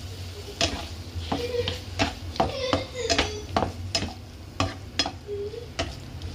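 A spatula stirring and scraping chicken pieces around a frying pan, knocking sharply against the pan about a dozen times at an uneven pace, over the sizzle of the sauce frying.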